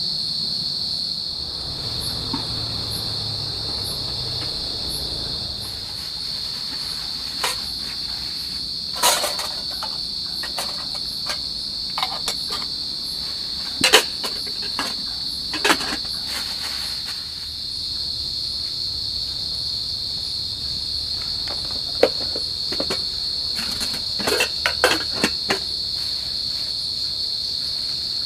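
Steady high-pitched insect chorus trilling without pause, with scattered sharp knocks and clicks, the loudest about 14 seconds in and a quick cluster near the end.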